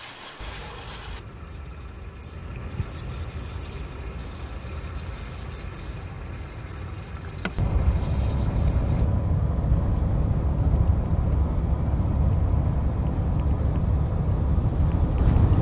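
Yeongnam TL350 motorhome driving on a highway, heard from inside the cab: a steady low rumble of engine and road noise, which jumps louder about halfway through.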